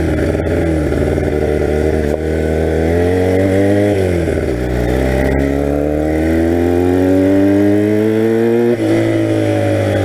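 1982 Honda motorcycle engine pulling up through the gears. The revs climb, drop at a gear change about two seconds in, and fall away briefly around four seconds. They then climb steadily for about four seconds before another gear change near the end.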